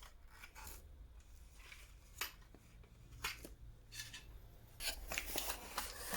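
Faint clicks and light rustling from vacuum cleaner parts and packaging being handled, with a few sharp clicks.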